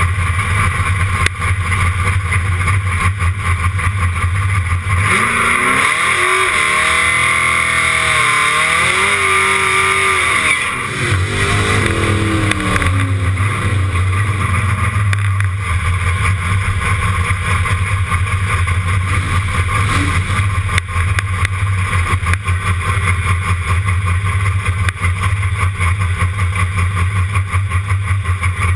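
1966 Dodge Dart's engine heard from behind the exhaust, idling with a steady low rumble. About five seconds in, for some six seconds, it is revved up and down with rising and falling pitch over a loud hiss of spinning tyres, a burnout, and then drops back to idle.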